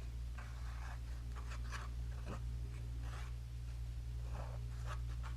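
Heavy cardstock being handled and rubbed as it is laid and pressed onto a paper base: a handful of short, dry papery scrapes and rustles. A steady low electrical hum runs underneath.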